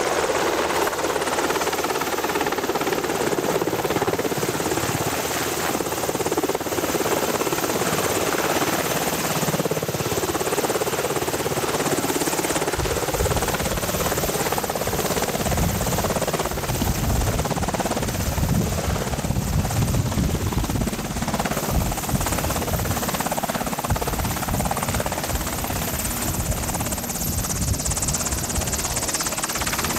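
Sikorsky VH-60 Night Hawk helicopter coming in to land: the twin turbine engines and main rotor run steadily as it hovers, descends and settles onto the pad with the rotor still turning. A deep, uneven low rumble joins about halfway through as it nears the ground.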